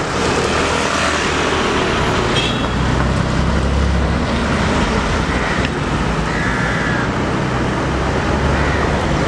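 City street traffic: cars and scooters driving past, giving a steady road and engine rumble.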